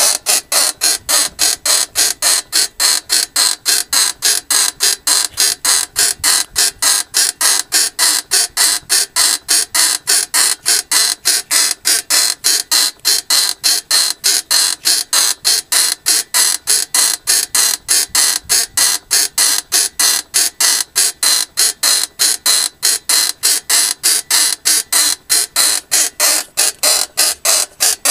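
Rhythmic high-pitched creaking from the rear of a Mercedes-Benz W220 S-Class, a sharp squeak repeating about three times a second; it cuts off suddenly at the end.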